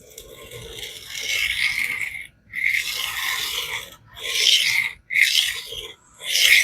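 A Spyderco Polestar's CTS-BD1 stainless steel blade is drawn freehand across a diamond sharpening plate at about 17 degrees per side. It makes five rasping strokes: the first two are long, and the rest are shorter and come about a second apart.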